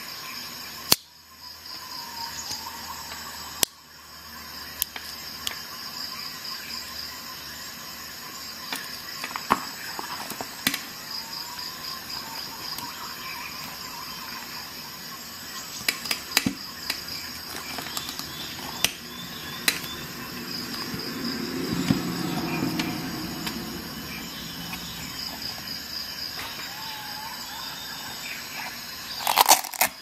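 Handling noise from a Victorinox Swiss Army knife: its tools snap shut with sharp clicks, followed by smaller clicks and the rustle of the knife being worked into a leather belt pouch. There is a loud clatter of clicks near the end. A faint, steady, pulsing high chirr runs underneath.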